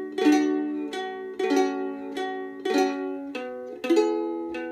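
Ukulele played in a pick-strum pattern: a single picked note, then a strummed chord, alternating evenly at about a stroke every 0.6 s. The chord changes about three and a half seconds in.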